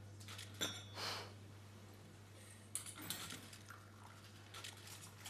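Faint clinks of a glass teapot and china teacups being handled, one with a short ring about half a second in, with a brief breathy sound just after and a few more light knocks later. A steady low electrical hum runs underneath.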